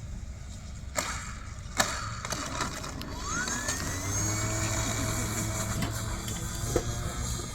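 Motor of a radio-controlled scale Cessna 182 model plane: two sharp knocks, then the motor's whine rises in pitch about three seconds in as the throttle opens and holds steady.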